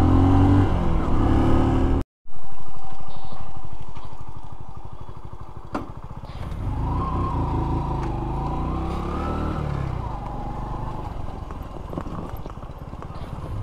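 Honda Pop 100 motorcycle's small single-cylinder engine running while it is ridden along a dirt road. The sound breaks off briefly about two seconds in, and later the engine pitch rises and falls a few times as the throttle is opened and eased.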